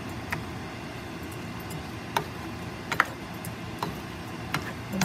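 A spatula knocking against a stainless steel frying pan while bitter melon and ground beef are stir-fried: about five scattered sharp clicks, the loudest about three seconds in, over a steady low noise from the frying.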